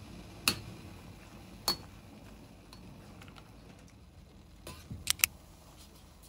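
A few sharp clicks over a faint steady hiss that slowly fades: one about half a second in, another just after a second and a half, and a quick run of three near the five-second mark, the last the loudest.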